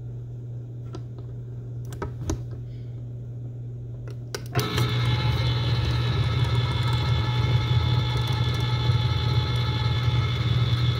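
Cuisinart deluxe electric can opener: a few clicks as the can is set on the cutting wheel and the lever pressed down, then about four and a half seconds in the motor starts suddenly and runs with a steady whirring hum, turning a small tuna can as it cuts around the lid.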